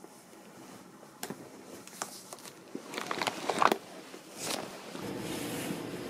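Handling of a white canvas tote bag: rustling fabric with several sharp clicks, busiest and loudest about three and a half seconds in. About five seconds in it gives way to a steady hum.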